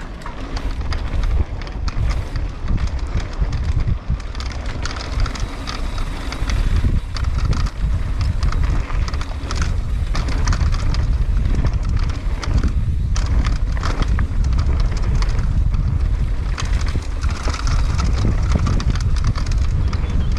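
Mountain bike being ridden along a trail: wind buffeting the microphone, with the tyres on the ground and the bike rattling in quick clicks and knocks. It gets louder over the first several seconds, then holds steady.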